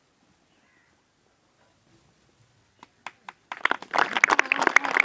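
Near silence, then a few scattered hand claps about three seconds in that quickly swell into dense applause from a crowd of children.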